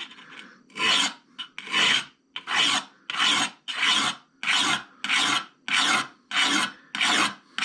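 A 260-grit diamond hone stroked back and forth along the blade edge of a clamped pair of antique Weiss shears: even rasping strokes, about three every two seconds, starting under a second in.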